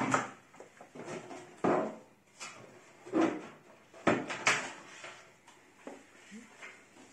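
The oven's back panel and parts being handled and worked loose: a string of irregular knocks, scrapes and clatters, one or two a second.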